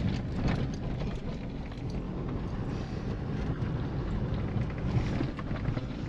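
Cabin noise of a small Nissan car driving slowly over a rough gravel and dirt track: a steady low rumble of engine and tyres, with a few faint clicks and rattles.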